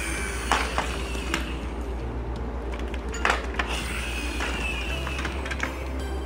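Plastic toy trucks being rolled and knocked about on a floor: scattered sharp clicks and clacks over a steady low hum.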